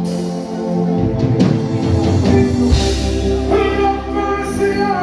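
Live band music with a voice singing over it, drums and a held bass note underneath.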